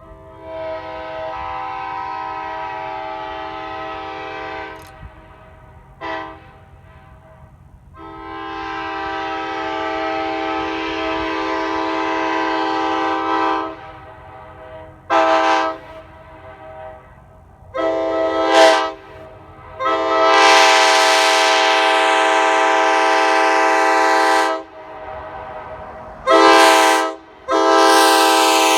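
Early-2000s Nathan Airchime K5LA five-chime train horn sounding its chord in a series of about eight blasts. Three are long, of roughly four to six seconds each, and the others are short, under a second or so.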